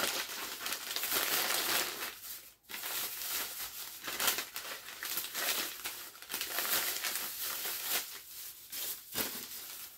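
Thin plastic shopping bag crinkling and rustling as it is handled and rummaged through, in uneven rustles with a short gap about two and a half seconds in.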